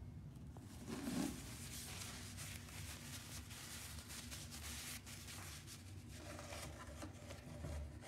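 Faint rustling and handling noise with a few soft clicks, as a paper tissue is handled at a pod coffee maker; a small bump about a second in.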